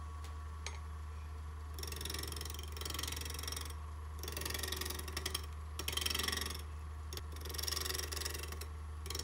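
Wood lathe running with a steady low hum while a gouge makes interrupted cuts into a spindle turned on an off-centre axis, the tool meeting air and wood in turn on each revolution. Several cuts of a second or two each, starting about two seconds in.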